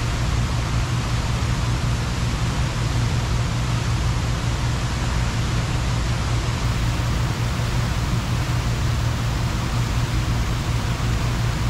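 Large multi-jet fountain's water spray falling into its basin: a steady, even rush with a low rumble underneath.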